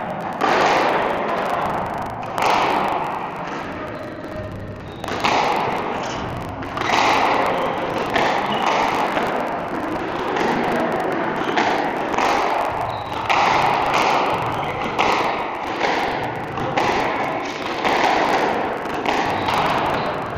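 Squash ball being hit by rackets and thudding off the court walls, a sharp hit about every one to two seconds, each ringing on in the court's echo.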